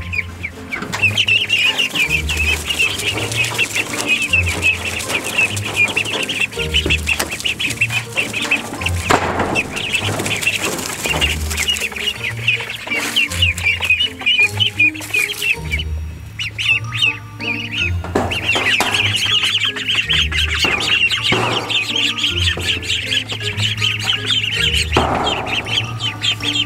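A flock of young ducklings peeping all together, a dense, continuous chatter of short high calls as they crowd around a trough feeder. Background music with a steady low beat plays under it.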